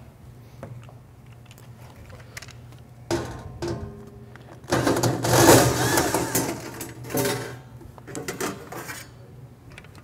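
Cordless drill-driver backing out the screws of a sheet-metal panel, its motor running in several short bursts; the longest and loudest comes about halfway through.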